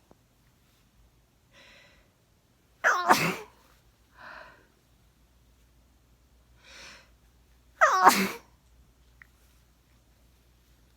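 A person with a head cold sneezing twice, about five seconds apart. Each sneeze opens with a voiced, sliding cry and breaks into a loud noisy burst, with softer breaths between the sneezes.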